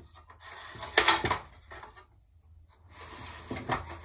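Parts of a dismantled plastic hassock fan and its long screws being handled: a loud clatter of hard knocks about a second in and another cluster of knocks near the end, with light rubbing between.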